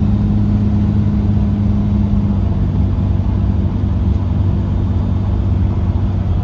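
5.9 Cummins inline-six diesel truck under way, a steady low drone of engine and road noise; its tone shifts slightly a little over two seconds in.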